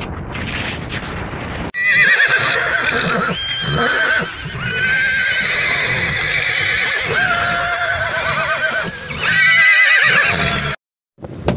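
Wind noise for about two seconds, then horses whinnying again and again: long, loud calls with a wavering pitch that overlap and follow one another. The whinnying breaks off abruptly near the end.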